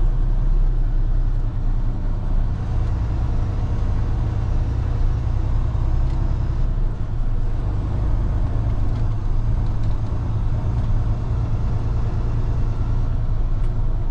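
Semi-truck diesel engine running steadily at low speed, heard from inside the cab as the truck creeps across a yard, a constant deep hum with no change in pitch.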